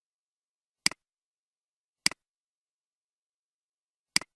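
Three sharp clicks of a computer mouse button, each a quick press and release, spaced about a second and two seconds apart.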